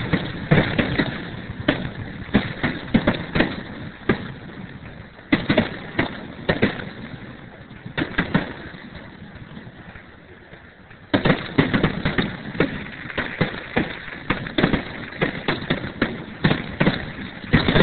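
Aerial firework shells bursting in a rapid series of bangs. The bangs thin out for a few seconds in the middle, then a dense run starts suddenly about eleven seconds in.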